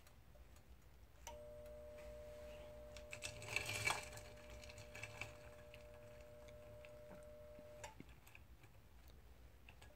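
Faint clinks and rattles of a glass test tube knocking against ice and the side of a glass beaker of ice water as it is handled, loudest about three and a half to four seconds in. A faint steady hum starts about a second in and stops shortly before eight seconds.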